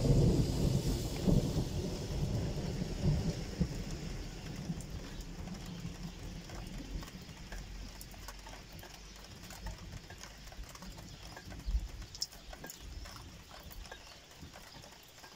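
Thunder rumbling, loudest at the start and dying away slowly over several seconds, with light rain and scattered faint ticks underneath.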